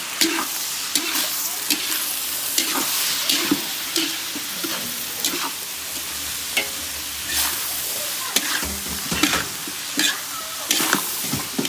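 Chicken and shredded carrots stir-frying in a large wok with a steady sizzle, while a metal ladle repeatedly scrapes and clinks against the pan, roughly once or twice a second.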